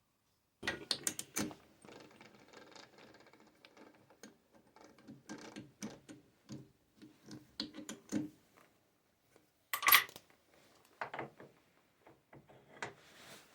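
Metal parts being handled: a run of clinks, knocks and light rattling, with a louder metallic clank about ten seconds in.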